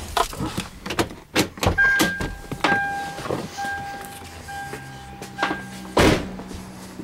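Clicks and knocks of someone moving about the cab of a 2004 Toyota 4Runner, while the vehicle's warning chime beeps repeatedly with the driver's door open, followed by a heavy thud about six seconds in as the door is shut.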